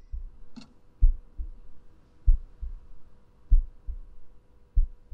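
Slow heartbeat as heard through a stethoscope: a pair of low lub-dub thumps about every one and a quarter seconds, over a faint steady hum.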